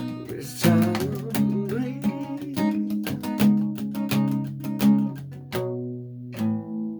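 Instrumental ending of a song on strummed acoustic guitar: a run of chords, then two final chords that are left to ring out and fade near the end.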